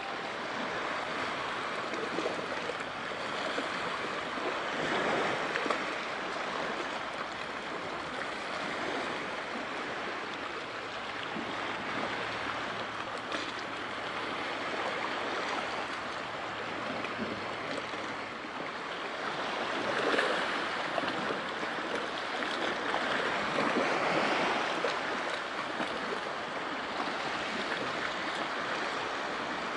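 Sea waves washing, a steady rush of water that swells louder every so often.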